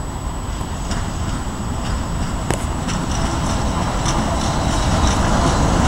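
Class 131 twin-section electric locomotive approaching at the head of a passenger train, its running noise growing steadily louder. A few sharp clicks are heard as wheels cross the points.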